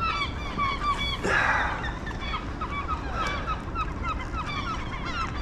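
A flock of gulls calling, many short overlapping calls several times a second, with a brief rush of noise about a second in.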